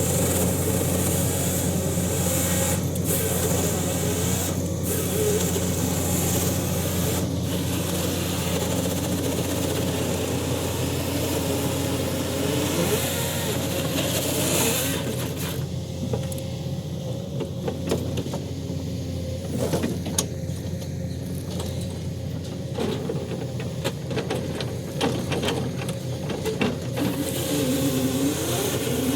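Engine of a heavy forestry machine running steadily under work, its note shifting up and down a few times.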